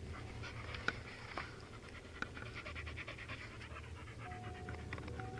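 A dog panting rapidly, with a few sharp clicks.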